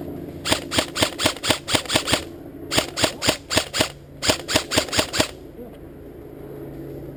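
Airsoft gun firing three quick strings of shots, about four or five a second, with short pauses between the strings.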